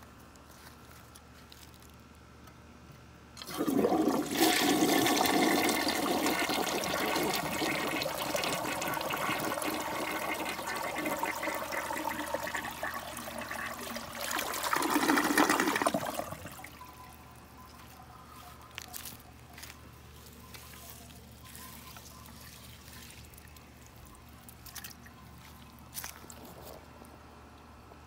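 A 1955 Briggs toilet flushing with a washcloth in the bowl. About three and a half seconds in, a loud rush of water starts and runs for roughly thirteen seconds, surging once more near its end before dropping off. Much fainter water sounds and a few small clicks follow.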